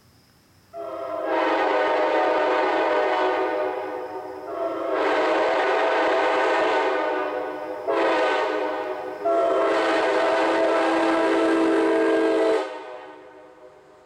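Nathan K5LA five-chime locomotive air horn sounding the grade-crossing pattern: two long blasts, a short one and a long one, each a loud chord of several notes. The last blast stops sharply and its echo fades away.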